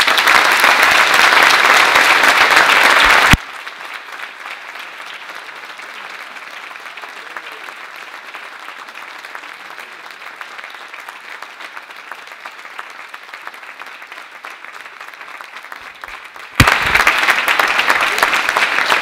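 Audience applauding, loud at first, then dropping abruptly to a much quieter level about three seconds in, and jumping back up abruptly near the end.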